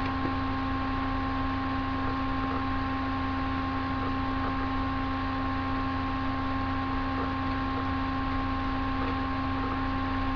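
Steady electrical mains hum with a few constant tones over a light hiss, unchanging throughout.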